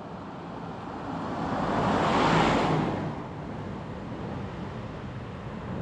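Steady road noise under a passing vehicle's tyres hissing on the wet road, swelling to a peak about two seconds in and then fading.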